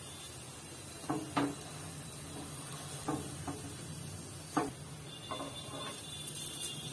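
Perforated steel spatula tapping and pressing on an urad dal adai on a black iron tawa, making about seven light knocks at uneven intervals over a steady low hum.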